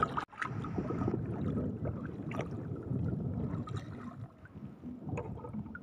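Shallow seawater sloshing and gurgling as someone wades through it, with a sharp knock at the very start and a few light knocks after.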